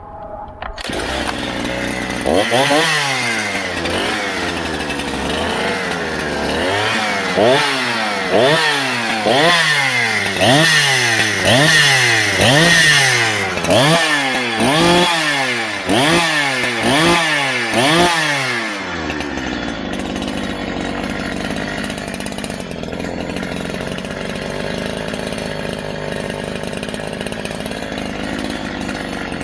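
Neotec NH-843 65cc two-stroke chainsaw (a Husqvarna 365 clone) running. Its throttle is blipped up and down about once a second for some fifteen seconds, then it settles to a steady idle.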